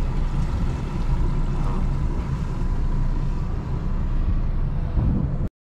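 Wind buffeting the microphone: a steady, rough low rumble with uneven gusty flutter that cuts off abruptly near the end.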